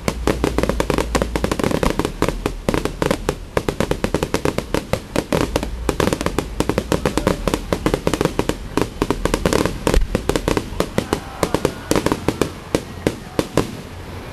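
Fireworks display going off in a dense barrage: many bangs a second, packed close together, thinning to fewer, separate reports near the end.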